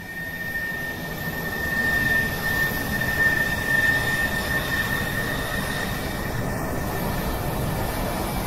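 Rushing, jet-like drone of a production-intro sound effect, swelling over the first couple of seconds and then holding steady, with a steady high whistling tone that fades near the end.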